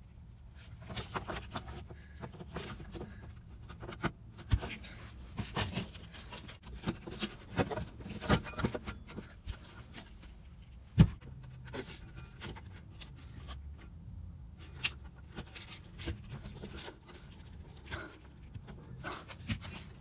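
Wires and spade connectors being handled and pushed onto a refrigerator compressor's electronic control module: irregular small clicks, rubbing and rustling, with one sharp click about eleven seconds in, over a steady low hum.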